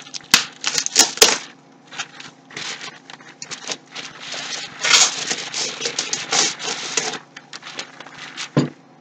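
Sharp clicks and taps, then plastic packaging rustling and crinkling with more clicks as a computer power supply is unwrapped and handled.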